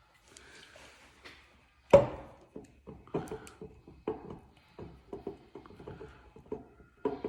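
Wax seal on the neck of a whiskey bottle being worked off by hand: a sharp crack about two seconds in, then a run of small clicks and scrapes as the wax breaks away, a seal that proves hard to open.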